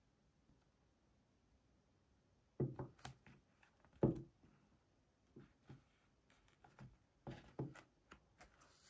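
Irregular light knocks and clicks of objects being handled and set down on a hard surface, the loudest a little after four seconds in, with near quiet for the first two seconds.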